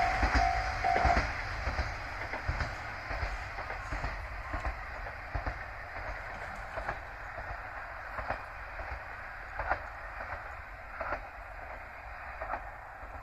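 A diesel train on the Yodo Line is heard at a level crossing. The crossing's warning bell rings in a pulsed tone and stops about a second in. The train's rumble then fades as it moves away, with its wheels knocking over rail joints about every second and a half.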